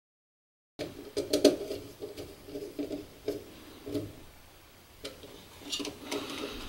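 Small clicks and scrapes of a hand fitting a 16-gauge stranded wire into a fuse holder on a DIN rail, starting after a short stretch of total silence.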